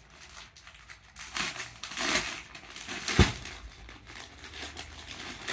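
Clear plastic packaging crinkling and rustling as a packed cloth suit is handled and slid out of its bag, with one short thump about three seconds in.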